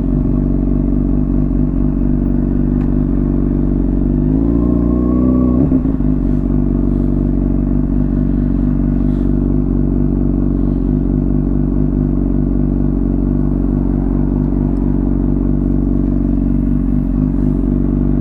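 Honda CBR600RR inline-four with a Hot Bodies Stinger slip-on exhaust, running steadily while riding. About four seconds in, the revs climb for over a second, then drop sharply before settling back to a steady note.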